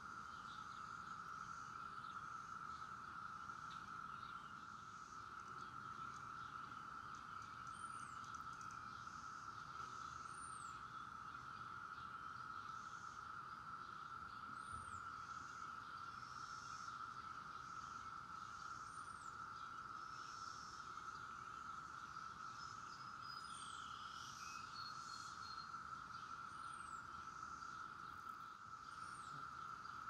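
Chorus of Brood X 17-year periodical cicadas: a steady drone at one even pitch. Short high chirps come every two to three seconds over it.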